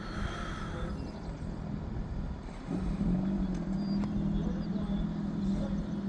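A motor vehicle's engine running steadily at a distance over a low rumble, its even drone coming in about two and a half seconds in and holding at one pitch.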